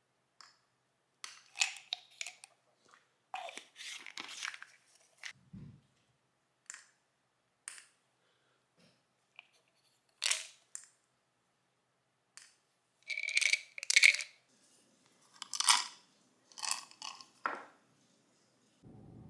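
Plastic vitamin bottles being handled: caps clicking and tablets rattling as they are tipped out into a palm, alongside a wooden pill case. The sounds come in short, separate bursts of clicks and rattles with pauses between them, the busiest a little past halfway.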